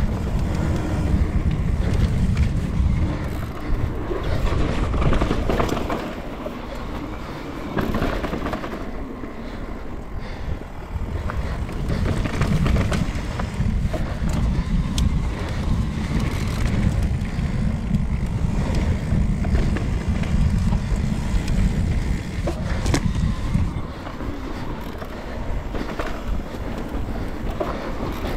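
Pole Voima mountain bike riding fast down dirt singletrack: tyres rolling and crunching over dirt and loose rock, with rattles and knocks from the bike and a low wind rumble on the helmet or chest camera's microphone. It eases off a little in a couple of quieter stretches.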